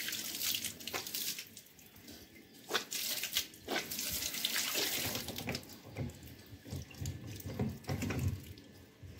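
Water gushing from the open outlet pipe of a plastic water tank and splashing over hands and onto steel plates below, while a replacement plastic tap is fitted onto the pipe. The splashing rises and falls as the hands and tap block and free the flow, with a few sharp plastic knocks.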